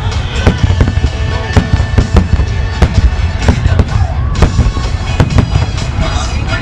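A fireworks display finale: a rapid barrage of bangs from aerial shells and low-level fireworks, several a second, over a continuous low rumble, with music playing underneath.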